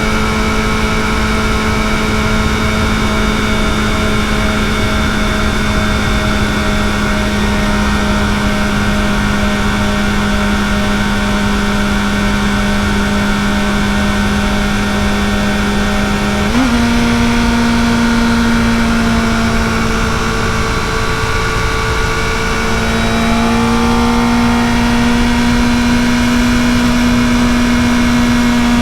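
Kawasaki ZX-4RR's 399 cc inline-four running on the stock exhaust at a steady high pitch under light throttle. Past halfway the revs spike briefly and settle at a slightly higher steady pitch, dip a little, then climb again as the throttle is rolled on.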